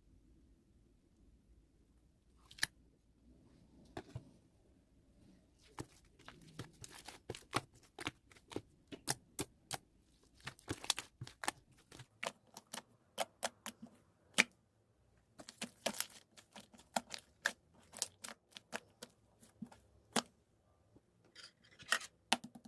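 An irregular run of sharp clicks and taps, sparse at first and then several a second from about six seconds in, with short pauses.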